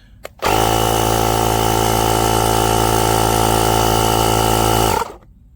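Portable jump starter's built-in air compressor (VTOMAN X7) starting abruptly, running with a steady motor hum for about four and a half seconds, then cutting off suddenly as its automatic shut-off stops it at the preset pressure of 25.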